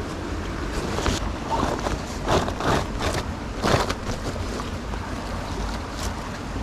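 Wind rumbling on the microphone, with a few short rustling knocks and scrapes about one to four seconds in.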